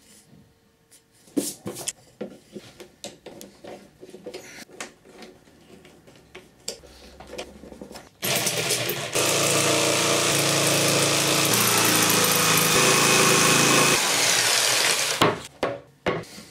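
Scattered knocks and clicks of a wooden board being handled, then an electric jigsaw starts about eight seconds in and saws steadily through a wooden board for about seven seconds, stopping near the end with a few sharp knocks.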